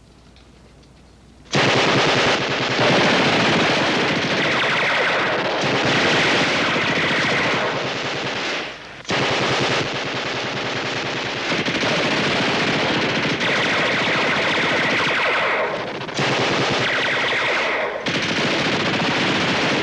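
Sustained machine-gun and small-arms fire, a heavy exchange of shots. It starts abruptly after a second and a half of quiet and runs on with brief lulls about halfway through and twice near the end.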